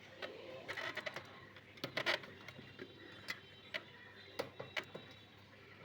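Faint, irregular plastic clicks of a cable tie being pulled through and tightened by hand: a few quick clicks about a second in and two seconds in, then scattered single ones.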